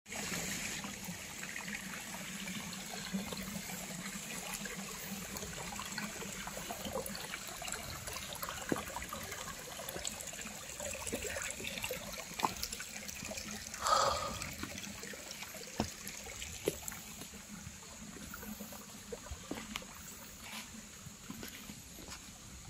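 Shallow forest stream trickling over stones, growing fainter as the walker moves away from it, with scattered footsteps on dry leaf litter and a steady high hiss. A short louder sound stands out a little past halfway.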